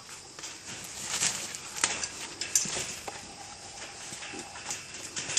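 Wild boars moving about on leaf litter and twigs in their pen: scattered rustling with irregular snaps and clicks, two sharper ones a little after the middle.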